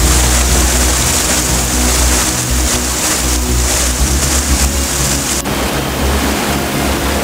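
Stream water rushing and splashing as it cascades over rocks, with a heavy low rumble that comes and goes. The sound shifts abruptly about five seconds in.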